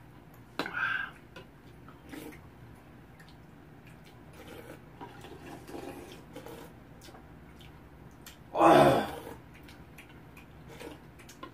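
Slurping of soup broth from spoons and a bowl, with a short slurp about a second in and a much louder, longer one about nine seconds in, and light clicks of spoons against bowls between them.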